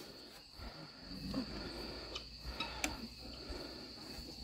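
Faint steady high-pitched insect drone, with a few soft knocks and rustles.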